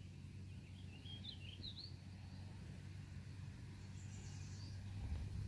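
Low wind rumble on the microphone, swelling near the end, with a few short bird chirps about a second in and again near the end.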